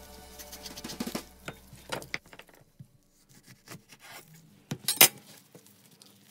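Small scrapes of a lemon being zested over background music that stops about two seconds in, then a knife cutting a lemon in half on a wooden chopping board, with one sharp knock of the blade on the board a little before the end.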